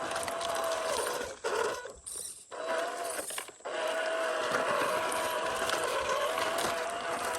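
Electric drive motor and gearbox of a 1/12-scale MN128 Jeep RC crawler whining as it climbs, the pitch wavering with load. The whine falters and cuts in and out about a second and a half in, then runs steadily again from about four seconds in.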